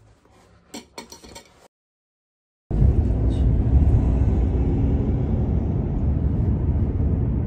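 A few faint clinks, a brief dead gap, then from about three seconds in a steady low rumble of road and engine noise inside a moving car.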